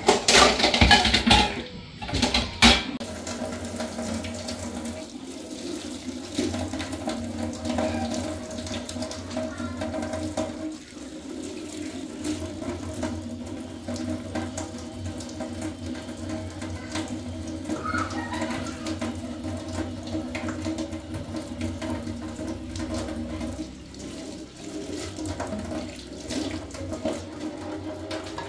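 A few loud clattering knocks in the first three seconds, then water running steadily from a tap.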